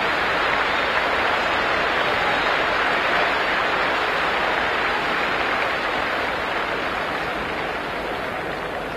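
Stadium crowd noise: a steady wash of many voices from the stands that eases off slightly near the end.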